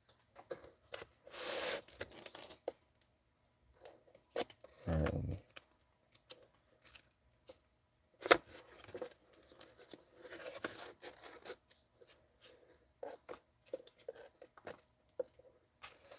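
Trading cards being flipped through and slid out of a cardboard card storage box by hand: scattered rustles, scrapes and clicks, with a dull thump about five seconds in.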